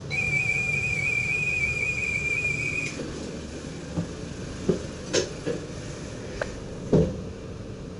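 A high, steady whistle tone that lasts about three seconds and stops abruptly, followed by a handful of separate clicks and knocks over a low background rumble.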